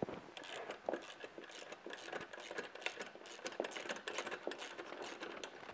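Two wrenches working a nylock nut off the axle of a hoist crank unit's spool: an irregular run of light metallic clicks and ticks, several a second.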